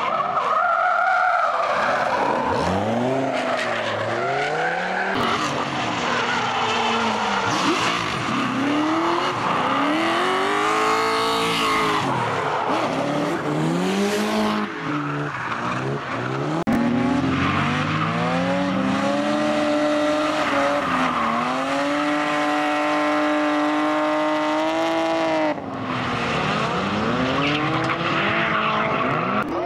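Drift cars' engines revving hard and falling back again and again as they slide through corners, over the hiss and squeal of tyres spinning and skidding. Between the rising and falling revs, one engine holds a steady high note for a few seconds, and the sound changes abruptly twice where one car's run gives way to another.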